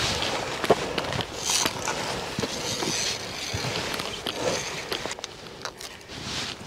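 Footsteps crunching on loose rock and gravel along a narrow mountain ledge path, with many small scattered clicks and scrapes over a steady outdoor hiss.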